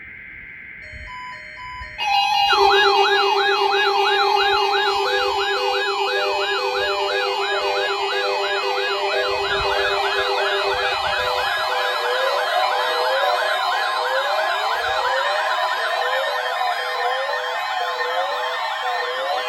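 A modded weather-radio warning alarm made of layered electronic sirens. A quieter steady tone plays for about two seconds. Then a loud stack of sirens starts at once: fast up-and-down wails, a high wavering tone, and a steady low tone that drops out about halfway through.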